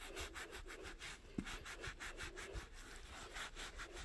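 Gloved fingers rubbing and scraping carpet pile in quick, faint, repeated strokes, several a second, working off bubble gum softened with a gum remover.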